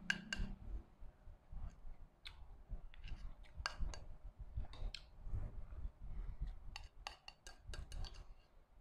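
Metal spoon clinking and scraping against a small ceramic bowl, in scattered light clicks that bunch together near the end, with chewing in between.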